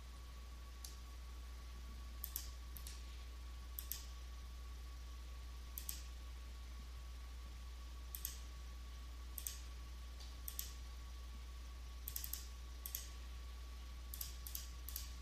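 Computer mouse clicking: single clicks and quick double-clicks every second or two, over a steady low hum.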